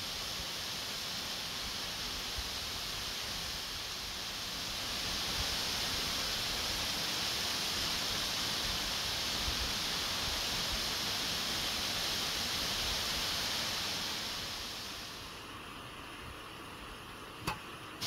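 Steady rushing hiss of a waterfall's falling water. It swells a few seconds in and drops back near the end, with one sharp click just before the end.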